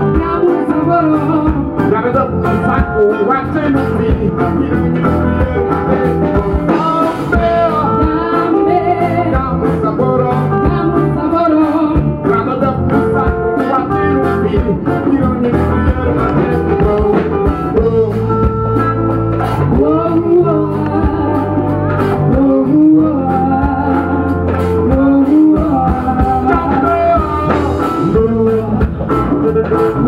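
A live band playing a song: a voice singing over acoustic and electric guitars and a drum kit, with a steady beat.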